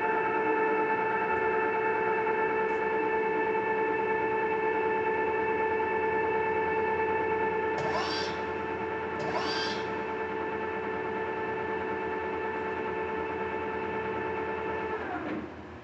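TOS SN71C engine lathe running under power, its gear-driven headstock giving a steady whine made of several pitches. Two brief rising whines come about a second and a half apart, about eight seconds in. Near the end the whine falls in pitch and dies away as the spindle is stopped.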